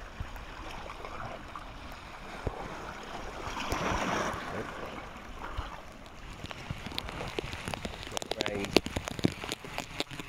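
Water lapping and splashing around a stand-up paddleboard in the rain, with a surge of splashing about four seconds in. In the last few seconds, a run of sharp, irregular close-up ticks and taps.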